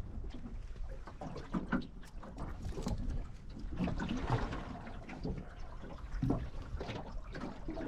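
Water sloshing and lapping, with a low wind rumble on the microphone and scattered small knocks and rattles of handling.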